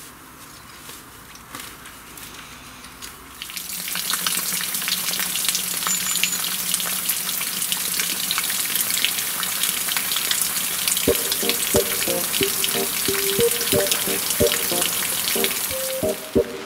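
Overhead irrigation sprinkler spraying water: a steady hiss with fine pattering of drops, starting about three and a half seconds in. A melody of short plucked-sounding notes comes in over it about two-thirds of the way through.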